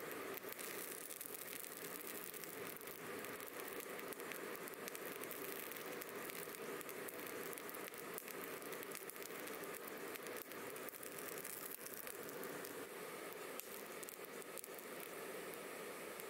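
Charcoal fire in a brick forge burning with a steady rush and constant small crackles and pops.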